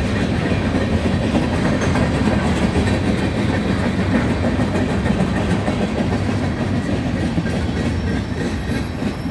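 Freight cars loaded with trash containers rolling past: a steady, loud rumble of steel wheels on rail. A faint thin high squeal comes in near the end.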